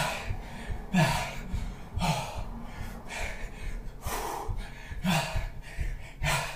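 A man breathing hard from exertion during a bodyweight workout, a short voiced gasping outbreath about once a second, each with a brief falling pitch.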